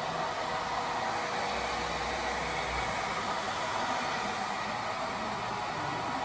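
Handheld hair dryer running steadily: a constant rush of blown air with a faint steady hum underneath.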